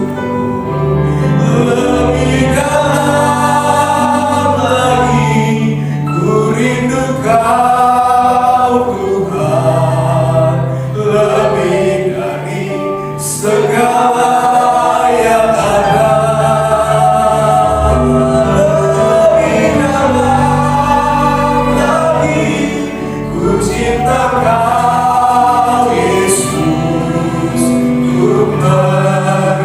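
Gospel worship song: voices singing together in a choir over long held low accompaniment notes.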